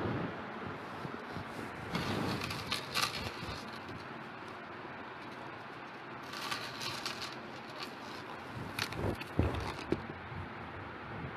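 Handling noise from handbags being moved about on a wooden table: rustling in two stretches, then a few sharp knocks.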